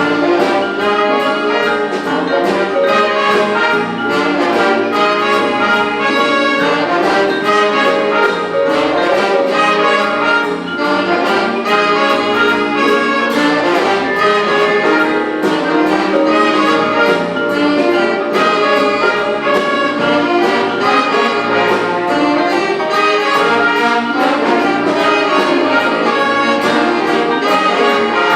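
A high-school jazz big band playing a piece with a full brass section of trumpets and trombones, with a steady beat from the drums.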